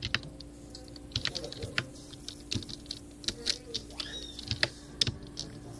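Slow, uneven one-handed typing on a keyboard: single key clicks at irregular intervals, a few per second.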